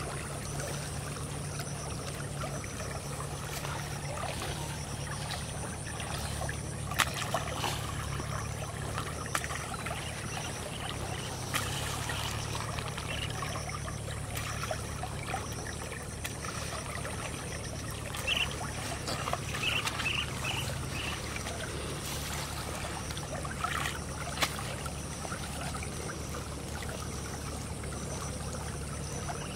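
Small canal stream flowing and trickling steadily, under a low steady hum, with a few short clicks from handling scattered through.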